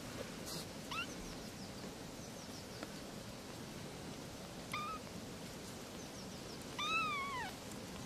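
Kittens meowing with high, thin calls: a short rising meow about a second in, another short one near the middle, then a longer meow that rises and falls near the end, the loudest of the three.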